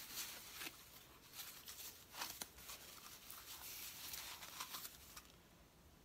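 White packing paper rustling and crinkling in short scrunches as it is unwrapped by hand from a teapot lid, stopping about five seconds in.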